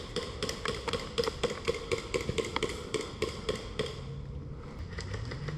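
A rapid, even series of sharp taps or clicks, about four a second, that stops about four seconds in.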